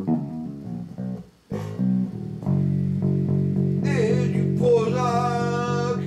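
Guitar played with plucked low notes, a brief break about a second and a half in, then a sustained low chord. A voice sings a long held note over it near the end.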